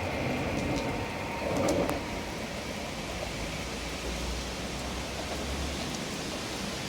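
Heavy rain falling steadily, an even hiss, with a brief louder knock just under two seconds in and a low rumble for a couple of seconds in the middle.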